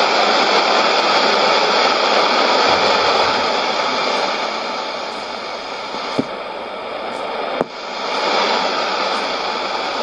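Shortwave receiver hissing with static on an AM frequency before a broadcast starts, with two sharp clicks in the middle. The hiss quietens somewhat around the middle as the station's carrier comes on and the signal meter lights up.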